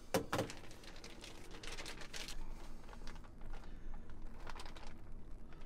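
Plastic vacuum-seal bag crinkling and rustling as chopped food is squeezed out of it onto a plate of rice, with a couple of knocks near the start.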